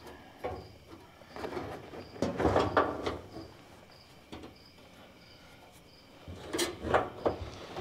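Metal fuel-tank strap clinking and rattling as it is handled and fitted under the car, in bursts about two seconds in and again near the end. A cricket's faint chirp repeats about twice a second underneath.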